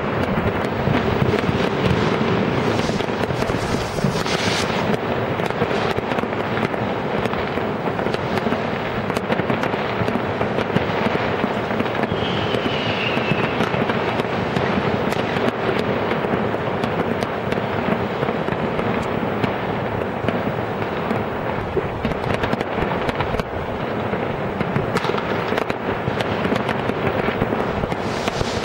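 Fireworks and firecrackers going off in a dense, continuous crackle of many bangs and pops. A short falling whistle sounds about halfway through.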